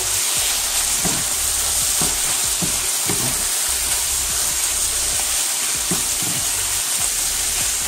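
Chicken strips frying in a skillet with a steady sizzle, stirred with a wooden spoon that scrapes against the pan every second or so.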